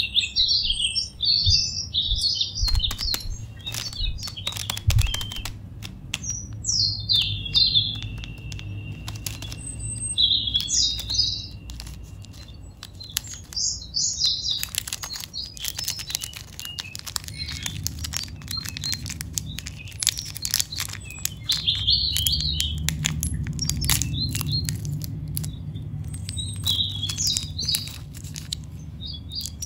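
Small birds chirping in repeated bursts of short high calls, over the crinkle and click of plastic and foil candy wrappers being handled. A low steady hum runs underneath and grows louder in the second half.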